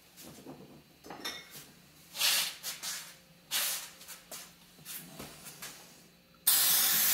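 Scattered knocks and clinks of things being handled, then about six and a half seconds in an aerosol can of freeze spray (called Freon) starts a steady hiss onto a bearing. The bearing is being chilled so that it shrinks and the puller can draw it off the drill press spindle.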